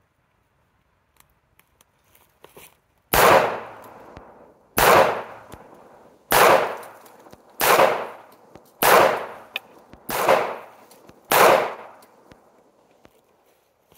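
Seven shots from a .380 Smith & Wesson pistol, fired one at a time about a second and a half apart. A few light clicks of handling come before the first shot.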